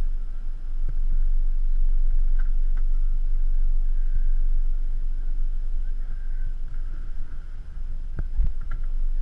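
Steady low rumble of a boat under way, muffled where the camera lies among dive gear, with a couple of short knocks about eight seconds in.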